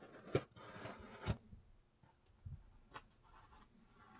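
A fingernail picking and scratching at packing tape on a cardboard box, with sharp clicks and taps. The two loudest clicks come in the first second and a half, with a scratchy stretch between them, then a soft thump and one smaller click.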